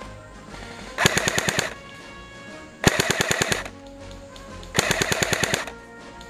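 King Arms Thompson airsoft electric gun firing three short full-auto bursts of rapid shots, each under a second long and about a second apart.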